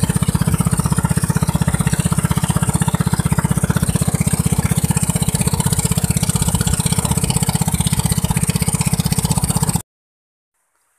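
Boat engine running steadily with a fast, even beat, cutting off abruptly near the end.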